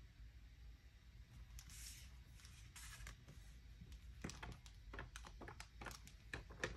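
Near silence with faint room hiss, then from about halfway a few small clicks and rustles of craft pens and paper being handled on a desk.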